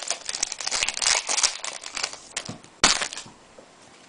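A trading-card pack wrapper crinkling as it is torn open, with one sharp crackle about three seconds in; it goes quiet after that.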